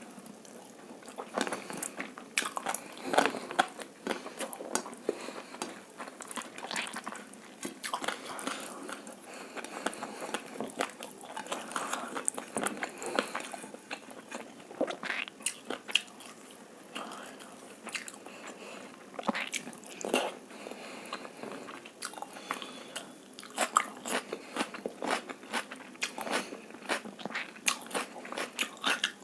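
Close-miked chewing and biting of egg fried rice and chilli chicken: a continuous run of irregular wet mouth clicks and small crunches.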